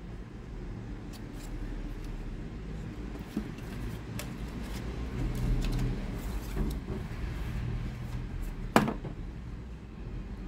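A smartphone's cardboard box and inserts being handled, with light rustles and clicks and one sharp knock near the end, over a steady low background rumble.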